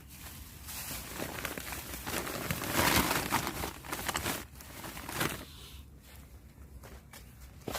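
Crinkling and rustling of something being handled, building to its loudest about three seconds in and fading after about five seconds, with a short click near the end.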